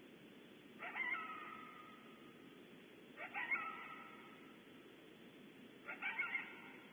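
Coyote barking three times, a couple of seconds apart, each bark drawing out into a short wavering howl, over a steady hiss.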